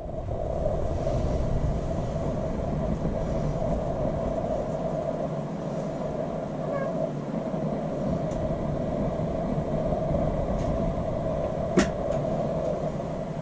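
Steady hum of a stationary 651-series electric train heard from inside the car, its onboard equipment running with a constant mid-pitched drone over a low rumble. A single sharp click comes near the end.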